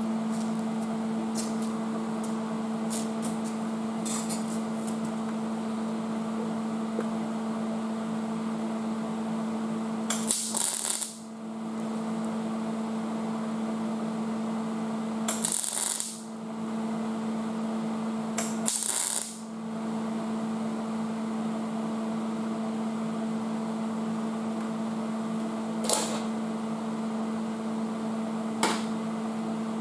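MIG welder humming steadily, with three short bursts of crackling arc about a second long each. The shielding gas is off.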